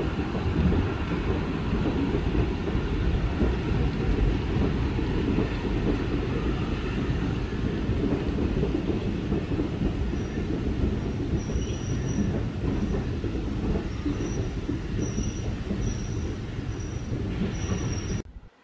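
Green heritage-railway passenger coaches rolling past close by: a steady low rumble of wheels on the track, with a thin, high wheel squeal coming and going from about ten seconds in. The sound cuts off suddenly near the end.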